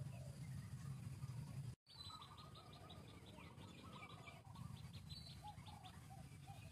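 Faint birds chirping: after a brief dropout about two seconds in, a rapid run of short high chirps with lower chirping notes beneath. A low steady rumble sits under it, stronger before the break.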